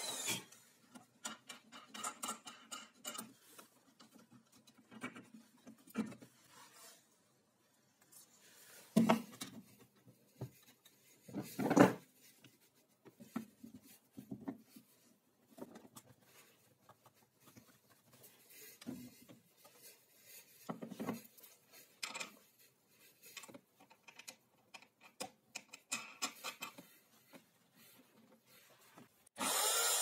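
Scattered scraping, rubbing and knocking of wooden pieces being handled and repositioned on a wooden drill jig, with two louder knocks about nine and twelve seconds in. Near the end an electric drill starts up and runs steadily.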